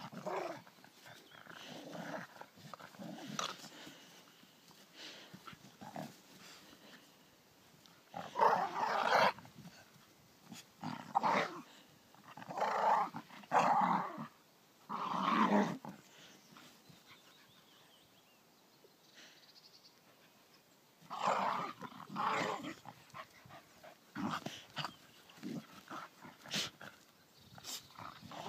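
Two soft-coated wheaten terriers, an old bitch and a puppy, growling at each other in rough play, in irregular bursts. The loudest run comes about a third of the way in, followed by a quieter spell just past halfway.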